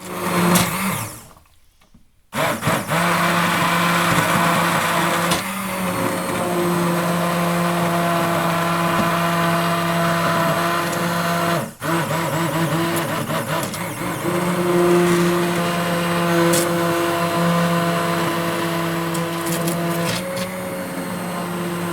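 Electric kitchen blender motor running at high speed, a loud steady hum with a high whine above it. It gives a short burst, stops for about a second, then starts again and runs on, with one brief drop a little past halfway.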